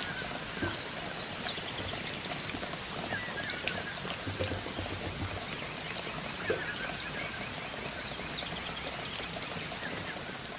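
Steady rain falling, an even hiss with scattered drop ticks, and a few short high chirps over it.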